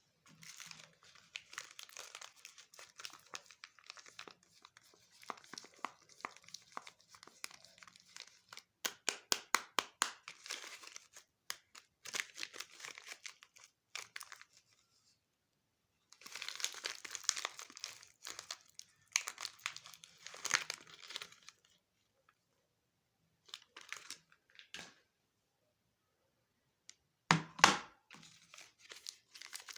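Soap bar packaging being unwrapped by hand: paper and plastic wrappers crinkling and tearing in bursts with pauses between them. About a third of the way in comes a run of sharp, quick ticks, and near the end a single louder knock.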